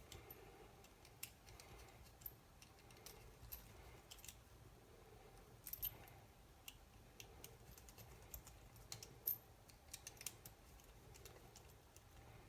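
Faint, scattered small clicks and taps of wires and small electronic parts being handled and pressed into place, over near silence.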